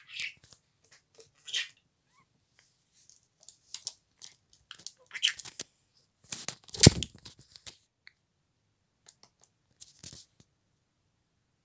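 A budgerigar at a plastic tub of mealworms in bran: scattered light scratches and clicks of its feet and beak on the plastic, with one louder knock about seven seconds in.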